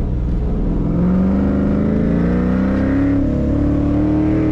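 Car engine accelerating hard under full throttle, recorded inside the cabin, its note climbing steadily in pitch as the car gains speed, with a brief dip about three seconds in before it keeps rising.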